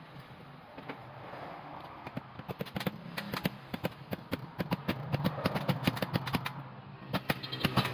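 Sharp, irregular taps and clicks, coming thicker after about two seconds, over a low steady hum.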